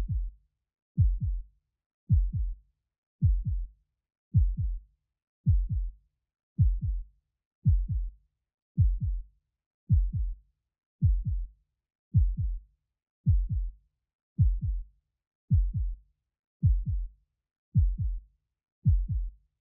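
Heartbeat sound effect: a slow, steady lub-dub, a low double thump a little more than once a second, with silence between beats.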